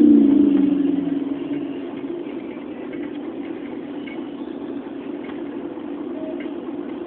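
Volvo Olympian double-decker bus engine heard on board, its revs and pitch dropping away over the first two seconds, then running on at a steady, quieter drone.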